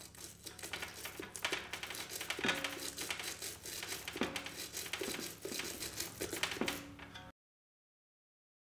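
Brass-bristled twisted-wire brush scrubbing the freshly carved shari (deadwood) of a shimpaku juniper bonsai: fast scratchy strokes with a few short squeaks, cutting off abruptly about seven seconds in.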